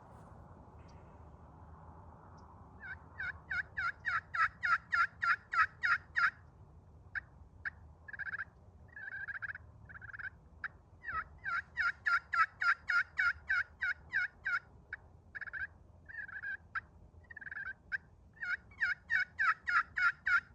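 Friction turkey pot call, a Munn ebony pot with a leopard skin jasper surface over copper, played with a two-piece laminate striker, imitating a hen turkey. Three runs of rapid yelps, about four notes a second, with scattered single clucks between them.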